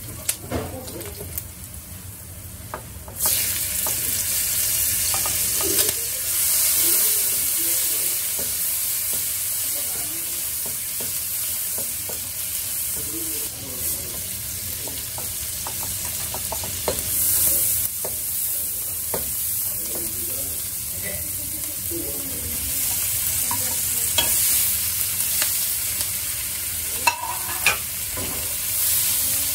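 Garlic and dried chilies frying in oil in a nonstick wok, the sizzle turning much louder and steady about three seconds in as more food hits the hot oil. Sliced onion and shrimp are then stir-fried, with a spatula scraping and knocking against the wok.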